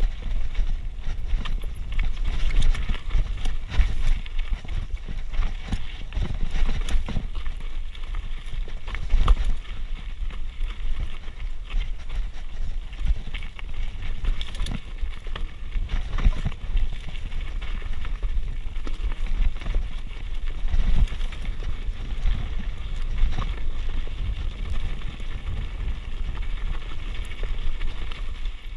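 Mountain bike riding down a rough rocky dirt trail: tyres rolling and crunching over rock and gravel, with a constant rattle and clatter of knocks from the bike over the bumps and a low rumble.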